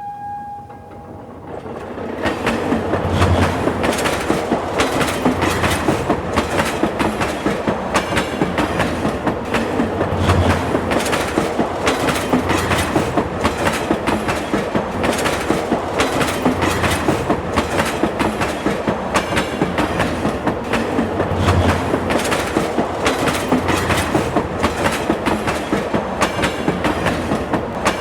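A train rolling on the rails, with a dense clatter of wheel clicks and regular low thumps as the cars pass over the rail joints. It builds up about two seconds in, just after the tail of a short horn-like tone.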